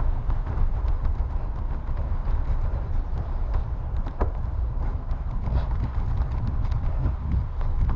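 Wind buffeting the camera's microphone as a bicycle rides over a gravel road, with a steady low rumble and many irregular clicks and rattles from the tyres on the gravel and the bike.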